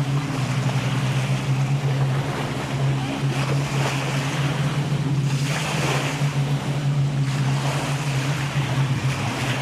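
Small waves breaking and washing up the sand in repeated surges. Under them runs a steady low engine drone.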